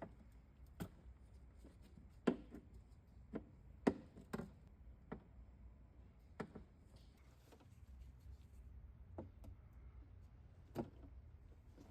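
Wiring harness connectors inside a Tesla Model S door being unplugged: about nine short, sharp plastic clicks and taps at irregular intervals, faint against a quiet background.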